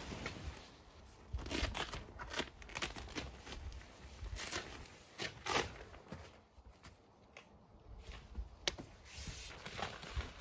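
Nylon tent fabric rustling and crinkling in irregular bursts as a wind panel is handled and fitted onto the wall of a pop-up hub screen tent, with one sharp click late on.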